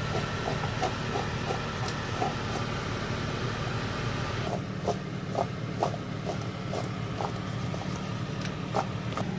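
Meat chops cooking in a covered steel pot: faint short crackles every few tenths of a second over a steady low mechanical hum.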